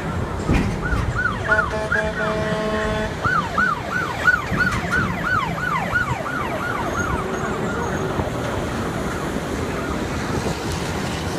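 Emergency vehicle siren in a fast yelp, rising and falling about three times a second, joined by a steady horn blast of about a second and a half early on. The siren fades out about eight seconds in, over steady highway traffic noise.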